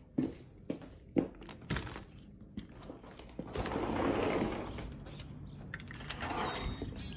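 A few footsteps, then a sliding glass patio door rolling open along its track, starting about three and a half seconds in. A second, shorter slide follows near the end.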